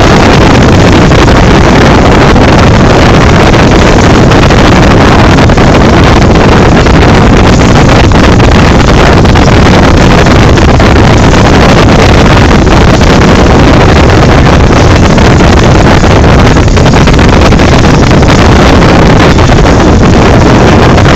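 Motorboat engine running steadily, with wind on the microphone, as one loud unbroken noise.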